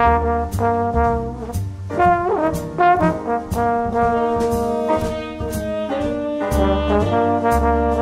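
Instrumental background music in a jazzy style: sustained brass-like melody notes over a bass line, with a steady drum beat about twice a second.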